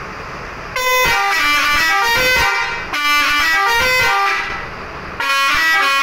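Bus horn playing a multi-note tune: held notes stepping up and down in pitch, starting about a second in, breaking off briefly near five seconds, then starting again.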